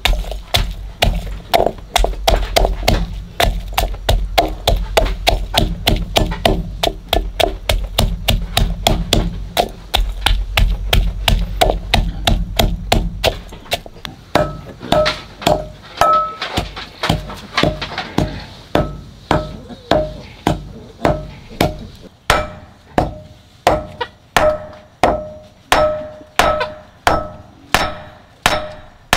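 Repeated blows of a hand striking tool. For the first half they come fast, about four or five a second, over a low rumble. From about halfway they settle into evenly paced strikes about two a second, each with a short metallic ring.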